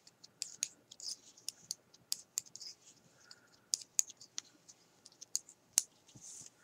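Metal knitting needles clicking against each other as stitches are worked, in irregular sharp ticks about three a second, with a soft rustle of yarn.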